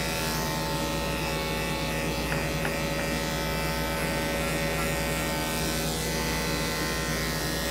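Corded electric pet clipper running with a steady buzzing hum as it trims hair around a small dog's face.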